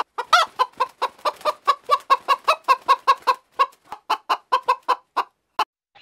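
Chicken clucking in a fast run of short calls, about four or five a second, spacing out and growing fewer near the end.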